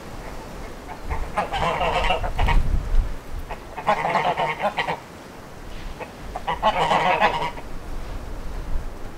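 White domestic geese honking in three bursts of rapid calling, each a second or so long. Wind rumbles low on the microphone underneath.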